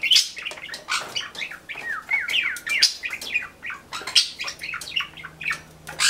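Cockatiels chirping and whistling in a rapid run of short calls, some gliding down and back up in pitch.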